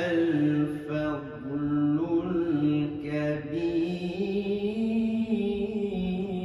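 A man reciting the Quran in the melodic tilawat style, drawing out long ornamented notes that step and slide between pitches with hardly a break.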